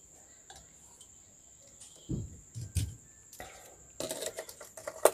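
Handling noise from resoldering work on a TV mainboard: a few dull low thumps about two seconds in, then a clatter of small clicks and knocks ending in one sharp click, as the soldering iron and board are handled. A steady high-pitched whine sits under it all.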